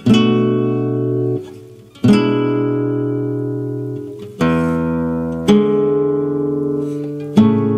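Solo classical guitar playing slow chords: five are struck, each left to ring and fade before the next.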